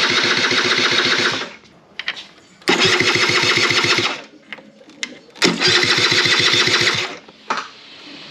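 Aprilia SR50 Ditech 50cc two-stroke scooter engine spun over by its electric starter in three short bursts, each a rapid, even chugging. It cranks but never fires, because the ignition is giving no spark.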